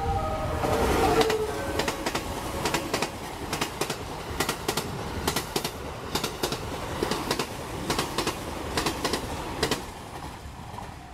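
Train Suite Shiki-shima (JR East E001 series) passing close by at speed, a steady rumble with its wheels clacking in pairs over the rail joints as car after car goes past.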